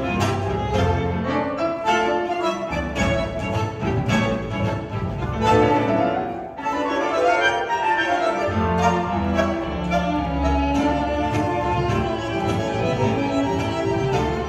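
Tango ensemble playing a milonga: bowed strings and piano over a steady, driving bass beat, with a short break in the music about six and a half seconds in.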